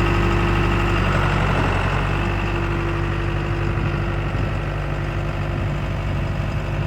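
John Deere 4510 compact tractor's three-cylinder diesel engine idling steadily. The engine note shifts slightly about two seconds in, and the sound grows a little quieter toward the end.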